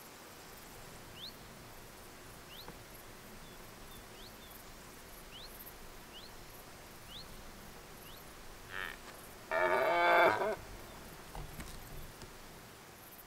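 Red deer stag roaring during the rut: a short grunt, then one loud bellow about a second long, most of the way through. Before it, faint high rising chirps repeat about once a second.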